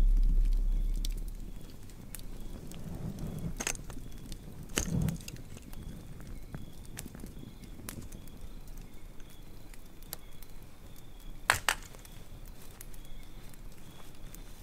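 Small open fire crackling with scattered faint clicks and a few louder sharp cracks, under a deep low rumble that fades away over the first two seconds.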